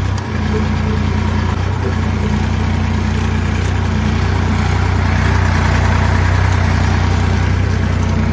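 Farm tractor's diesel engine running steadily as it is driven across a field, a continuous low drone.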